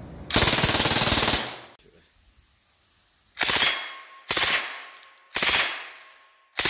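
Suppressed 9mm MAC-10 (Ingram M10) submachine gun firing full-auto. First comes one burst of about a second with the factory upper. Then, with a Lage upper, come three short bursts about a second apart and a fourth starting near the end.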